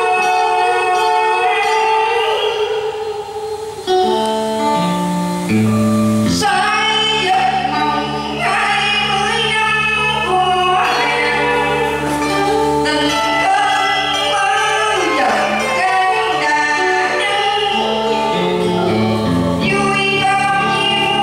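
A song sung by voices with instrumental accompaniment. The accompaniment thins briefly about three seconds in, then low bass notes come in and the full band plays from about six seconds on.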